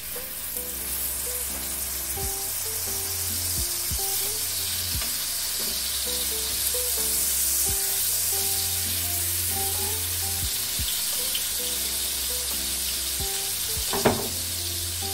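Pork chops sizzling in hot olive oil and butter in a frying pan: the sizzle starts suddenly as the first chop goes in and then holds steady. A sharp click sounds near the end.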